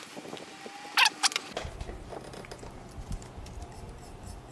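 Computer keyboard clicks: two sharp key presses about a second in, then fainter scattered ticks over a low rumble.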